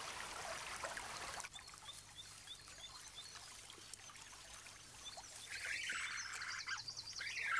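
Water trickling for about the first second and a half, then cut off. Faint regular chirps follow. From about two-thirds of the way through come high-pitched wavering squeals from newborn European otter cubs.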